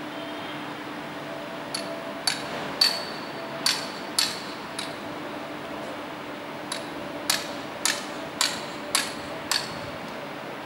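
Hand hammer striking metal in two runs of about six sharp, ringing blows each, a little under two a second, with a pause of about two seconds between.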